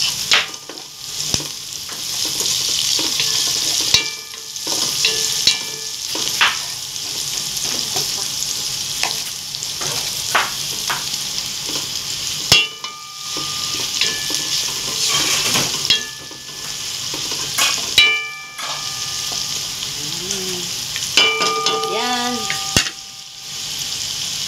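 Sliced onions, ginger and garlic sizzling in hot oil in a pot, stirred with a wooden spatula that scrapes and knocks against the pot again and again.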